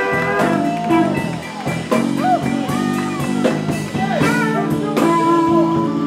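Live blues band playing: an electric guitar plays lead lines with gliding, bent notes over steady bass and a drum kit keeping a regular beat.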